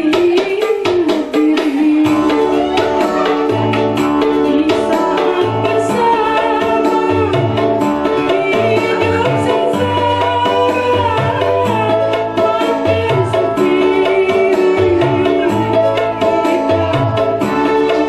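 A woman singing a slow, held melody into a microphone over musical accompaniment with a steady percussion beat.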